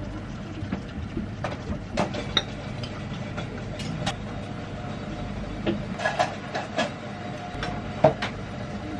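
Porcelain coffee cup, saucer and fork clinking against china: a dozen or so short, sharp clinks, a few ringing briefly, in two clusters, with the loudest near the end. Under them runs a steady low rumble of room hum.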